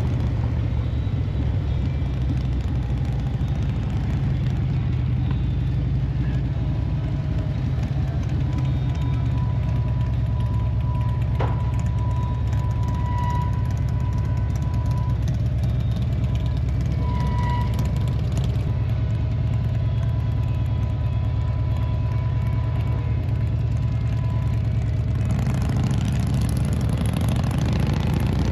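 Harley-Davidson bagger motorcycle under way at a steady speed: a constant low engine and road rumble.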